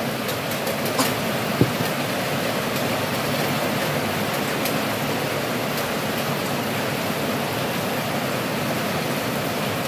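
Steady rushing hiss of a wok of asam pedas broth heating over a gas burner as it comes up to a simmer, with a single sharp knock a little under two seconds in.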